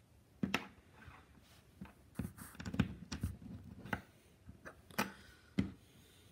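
LEGO bricks being handled and pressed together: an irregular string of sharp plastic clicks and light knocks.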